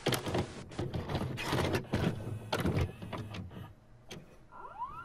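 VHS cassette loading into a VCR: a series of mechanical clicks and clunks as the tape is taken in and threaded, then the deck's motor whining up in pitch near the end as it starts to play.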